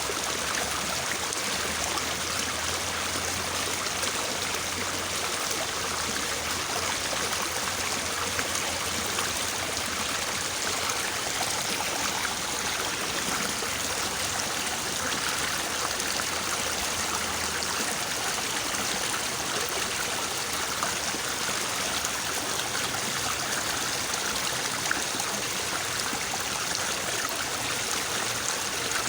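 Fairly fast-flowing water of a small river babbling steadily.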